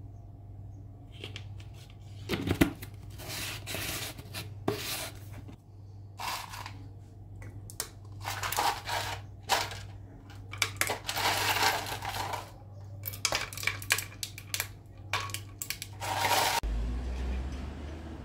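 Paper and small objects being handled on a desk: irregular rustling of paper and notebook pages, with sharp clicks and knocks as things are picked up and set down.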